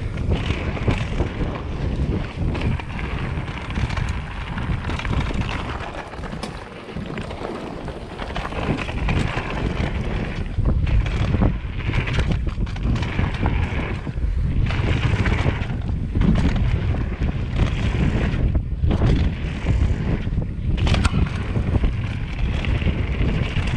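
Mountain bike riding down dirt singletrack: wind buffeting the camera's microphone and tyres rolling over the dirt, with frequent small knocks and rattles from the bike. A brief easing of the noise comes about six to seven seconds in.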